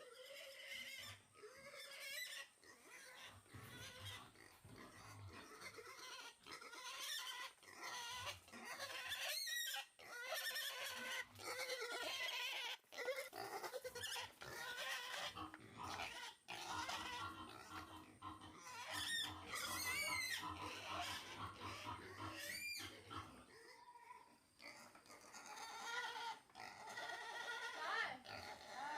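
Wild boars grunting and squealing continuously, with several sharp rising squeals among the grunts.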